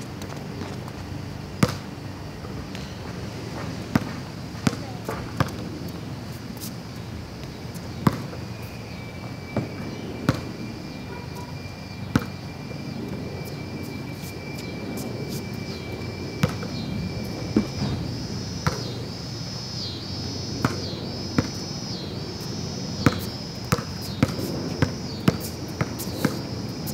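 A basketball bouncing on a concrete slab as it is dribbled, with sharp single bounces at uneven gaps. The bounces come more often, about once a second, in the second half.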